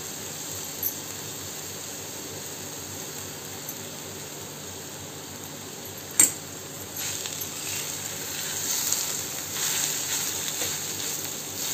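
Grated raw mango sizzling gently in ghee in a steel kadhai. About six seconds in a steel spoon clinks once against the pan, then it scrapes and stirs the shreds around the steel pan, louder and uneven.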